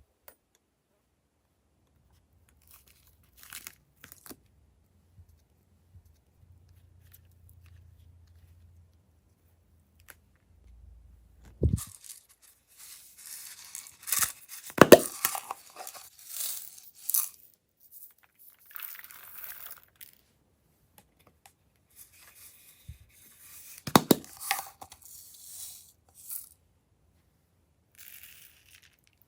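Glossy slime being stretched and squished by hand, making crackling, tearing sounds with a few sharp pops. It is quiet for about the first twelve seconds, then gets loud.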